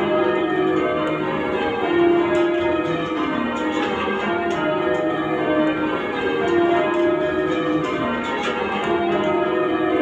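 Bristol Cathedral's ring of eight church bells, a 21 cwt ring tuned to E flat, being rung full circle in change ringing: a steady, continuous stream of overlapping bell strikes, each tone ringing on under the next. Heard from the ringing chamber below the bells.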